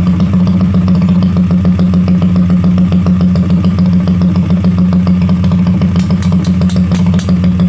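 Skygo 150 motorcycle engine, built up for drag racing, idling steadily with a fast, even exhaust beat.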